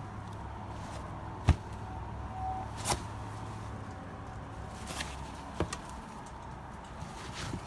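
Clothing being shifted around by hand in a plastic storage tote: a few sharp clicks and knocks, the loudest about a second and a half in, over a steady low hum.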